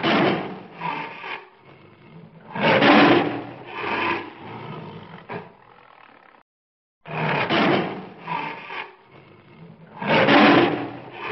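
Tiger roaring: a few loud, rough roars with growling between them. The same sequence breaks off about six seconds in and then plays again.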